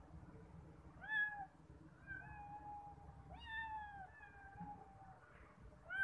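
Cats meowing: a run of four or five high-pitched meows, one of them drawn out for about a second.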